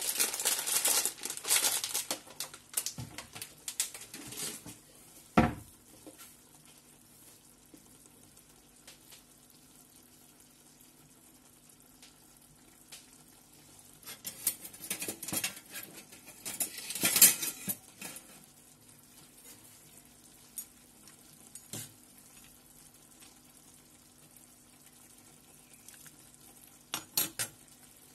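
Sizzling and crackling from a pot of tagliatelle nests heating in water beside a frying pan of bolognese, busiest in the first few seconds. After that it is mostly quiet, broken by scattered sharp clicks of a utensil against the cookware, the loudest about five and seventeen seconds in, and two clicks near the end as a slotted pasta server goes into the pot.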